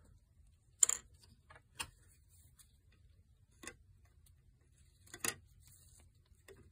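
A few sharp, isolated clicks of hard plastic model-kit parts being handled and set against each other, the first about a second in the loudest.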